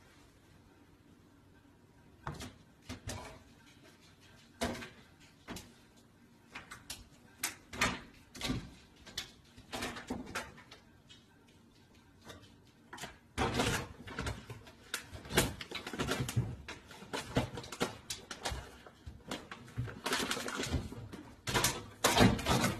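A cat scrabbling at an open kitchen cabinet from atop a microwave: scattered knocks and taps of claws and the cabinet door, then from about halfway through a dense run of crinkling and knocking as the cat pulls a bag out of the cabinet.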